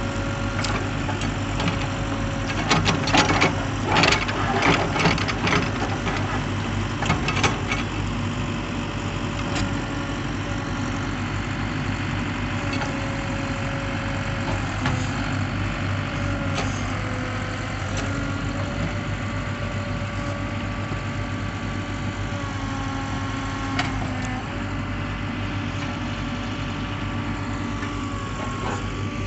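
Mahindra EarthMaster VX backhoe loader's diesel engine running steadily while the backhoe digs, its pitch dipping briefly now and then. A burst of clanks and scraping knocks comes between about two and eight seconds in.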